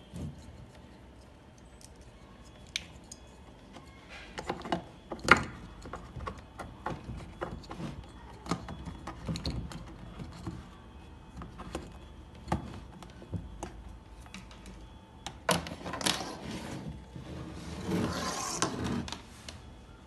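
Hands handling a hollow resin tabletop fountain and its plastic tubing and pump cord: scattered clicks, taps and knocks, with a longer scraping rustle near the end.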